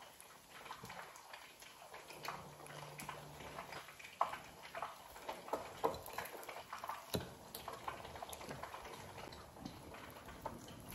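Close-up eating sounds: chewing and crunching crispy fried yellow bass, with wet mouth smacks and the crackle of the fried fish being torn apart by hand, in short irregular clicks.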